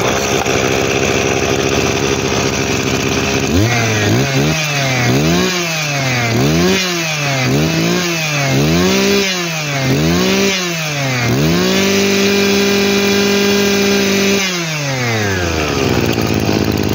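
TH26 two-stroke brush cutter engine running: it idles, then is revved up and down in a series of about six or seven quick throttle blips, held at high revs for a couple of seconds, and let back down to idle near the end.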